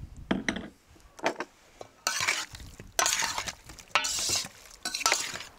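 Metal tongs tossing slices of cooked beef tongue in an enamel basin: scraping clinks of metal on enamel mixed with wet slaps of meat, in about six short bursts.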